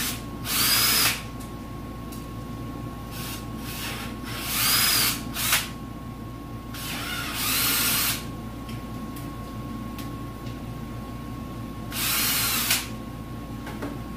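Power drill with a 3/8-inch bit boring holes in a Bauer electric pressure washer for nozzle-holder grommets. It runs in five short bursts, each about a second or less, with the motor whine rising as it spins up.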